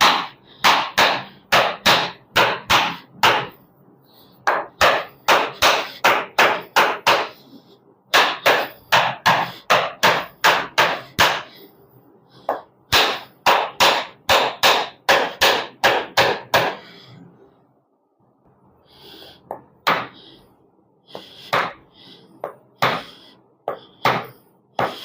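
Rhythmic percussive strikes on a patient's body during a chiropractic treatment, about three a second in runs of several seconds. After about 17 s a short lull, then softer, more scattered strikes.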